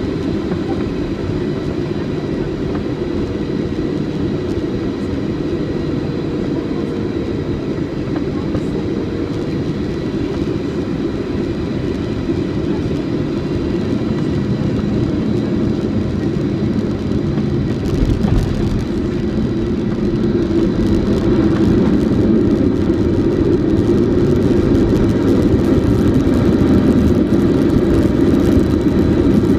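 Steady engine and airflow rumble inside the cabin of a Boeing 777-200 on final approach. About two-thirds of the way through a thud marks the main gear touching down, then the rushing noise grows louder through the rollout on the wet runway.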